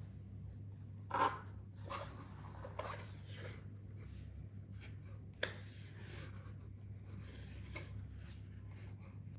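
Intermittent rustling and scraping from items being handled during an unboxing, with one sharp click about five and a half seconds in, over a steady low hum.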